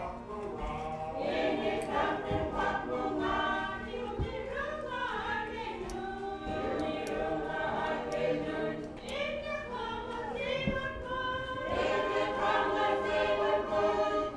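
A small group of voices, men and women together, singing a gospel hymn translated into Inupiaq.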